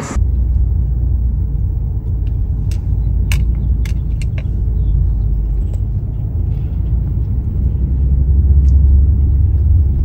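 Inside a moving car: a steady low rumble of engine and tyre noise, growing a little louder near the end, with a few faint clicks about three to four seconds in.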